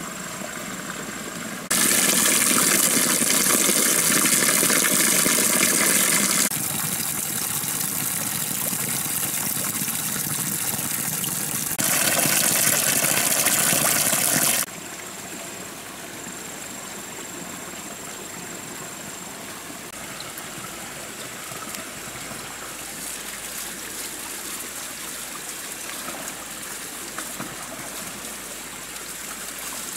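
A stream of water pouring from a bamboo pipe into a plastic-lined bathtub and splashing. It is much louder twice in the first half, close to where the stream hits, then softer and steady for the second half.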